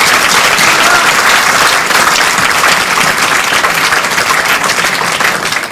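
Audience applauding: many hands clapping at once in a dense, steady applause that begins to die away near the end.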